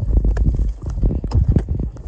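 Footsteps of a hiker walking through dry grass and over lava rock, irregular crunching steps about two a second, with wind rumbling on the microphone.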